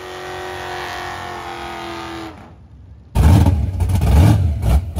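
A van's engine held at high revs through a tyre-smoking burnout, its pitch sagging slightly as it comes off the throttle after about two seconds. After about three seconds a supercharged V8 in a yellow Pontiac Firebird takes over, running loud and uneven with a deep rumble.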